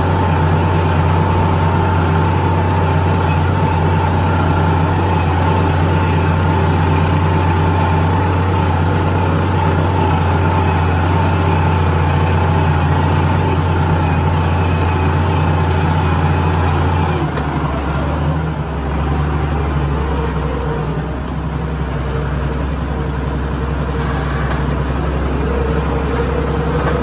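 Farm tractor's diesel engine running steadily under load while pulling a disc harrow, heard from inside the cab. About two-thirds of the way through, the engine note drops lower and a little quieter as the engine slows.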